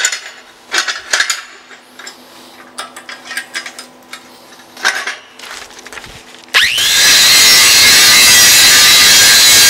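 Steel pieces clinking and knocking as a backing strip is clamped up. About six and a half seconds in, an angle grinder with a hard grinding disc spins up with a rising whine and grinds steadily, taking mill scale off the hot-rolled steel.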